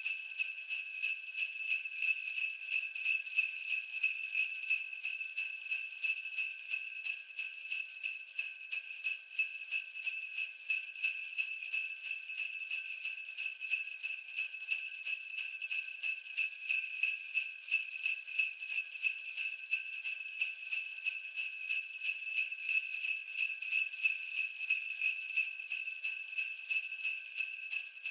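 Sleigh bells shaken in a steady, even rhythm, jingling continuously with high, bright ringing.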